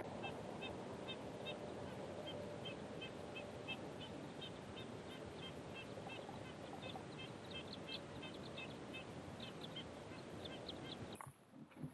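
Birds chirping in quick, high calls several times a second over a steady rushing noise; both cut off suddenly near the end.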